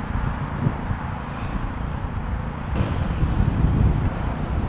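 Yamaha WR125 dirt bike engine running while riding over rough grass, with heavy wind noise on the microphone. A sharp knock comes a little under three seconds in, and the sound grows louder after it.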